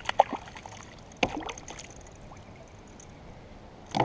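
A few short splashes and knocks from a hooked pike being reeled up beside a kayak and lifted from the water. The loudest comes about a second in, with little but faint water sound after it until another knock near the end.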